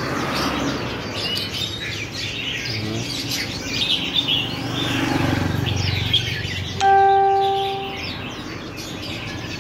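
Birds chirping and twittering continuously. About seven seconds in, a single bell-like ringing tone sounds and fades away over about a second.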